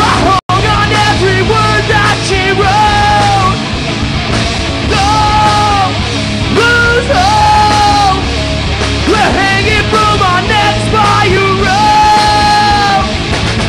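Live rock band playing loud, electric guitars and drums under a vocalist singing long, held notes. The sound drops out completely for an instant about half a second in.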